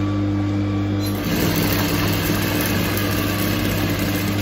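A steady electric hum, then about a second in a sewing machine starts stitching, running evenly for about three seconds before it stops.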